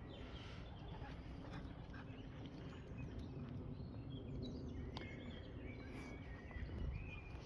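Faint birdsong, short chirps now and then, over a steady low rumble of outdoor background noise.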